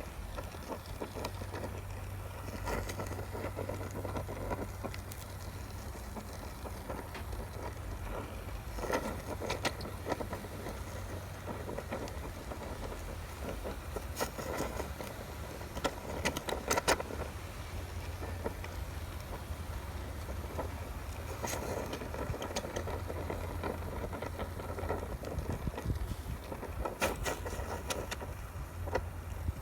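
Handheld gas torch flame burning steadily as it heats the aluminium transmission case for brazing with Super Alloy 5 rod, the case not yet hot enough for the alloy to flow. A few sharp clicks and taps break through the steady burning.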